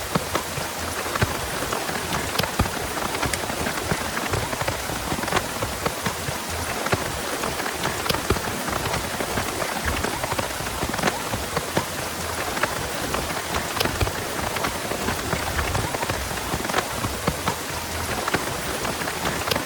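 Heavy rain falling steadily, a dense hiss packed with sharp individual drop impacts on nearby surfaces.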